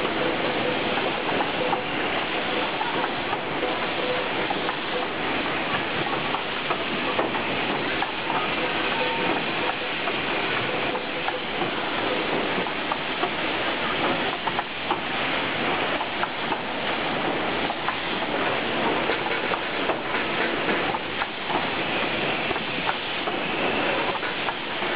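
Din of a hall of rotary blow molding machines running together: a steady, dense clatter of many mechanical clicks mixed with pneumatic hiss.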